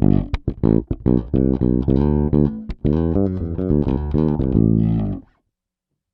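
Peavey T-40 electric bass played fingerstyle: a quick run of plucked notes that stops about five seconds in, then silence.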